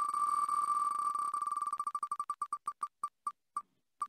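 Wheel of Names web spinner's tick sound effect: rapid electronic clicks as the wheel spins, slowing to a few widely spaced ticks as it coasts to a stop.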